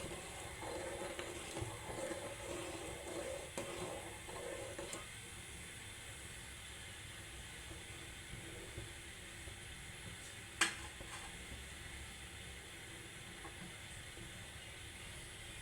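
Pot of kadha bubbling as it simmers on the stove, busiest for the first five seconds and then settling to a quiet steady hiss. A single sharp click comes about ten and a half seconds in.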